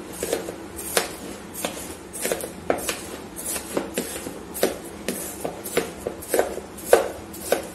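Metal knife chopping and scraping through frozen ice-cream base in a plastic bowl: short, sharp knocks about two to three a second, irregularly spaced, with the loudest strike near the end.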